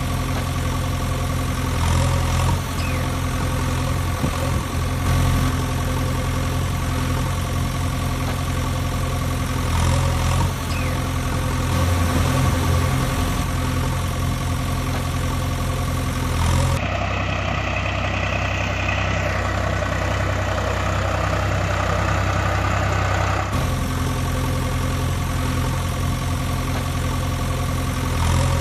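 Heavy engine idling steadily, an engine sound effect laid over toy machinery. Past the middle it switches for about seven seconds to a different, hissier engine recording, then goes back to the first.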